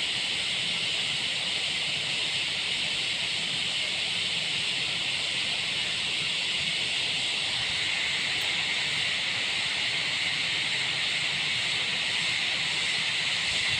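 A steady, high-pitched hiss that holds at one even level throughout, with no engine running and no impacts.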